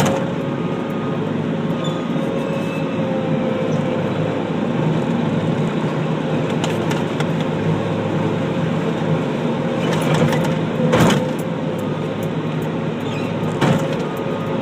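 Skid steer loader's engine running steadily. Sharp knocks come through it about ten to eleven seconds in and again near the end.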